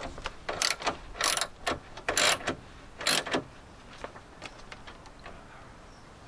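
Socket ratchet wrench clicking in short runs as a bolt in the car's metal door frame is turned: about five quick bursts in the first three and a half seconds, then only a few faint ticks.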